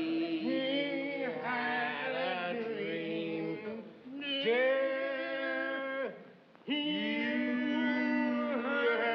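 Two men singing together in long, drawn-out held notes, on different pitches. The singing breaks off briefly a little past the middle, then resumes.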